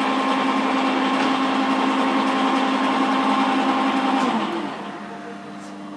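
Cincinnati milling machine taking a facing cut across a plasma-cut jaw blank, running steadily and not complaining under the cut. About four seconds in, the sound dips in pitch and gets quieter, leaving a steady hum.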